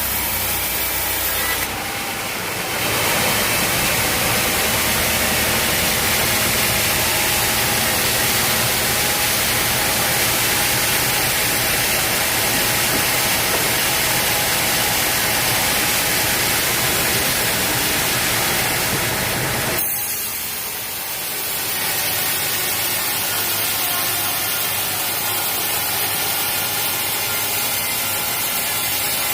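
Sawmill saw cutting through teak wood: a loud, steady hiss of sawing with the machine running underneath. The sound changes abruptly about two seconds in and dips briefly around twenty seconds before carrying on.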